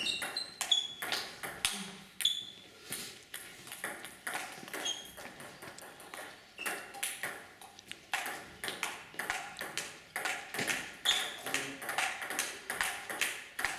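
Table tennis ball clicking off bats and table during rallies: quick sharp pocks, some with a short ring. Sparser for a few seconds in the middle, then coming fast and steady again from about 8 seconds in.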